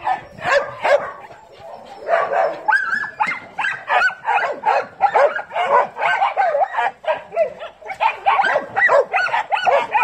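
Several dogs barking and yipping as they play together, a near-continuous run of short, overlapping calls that rise and fall in pitch.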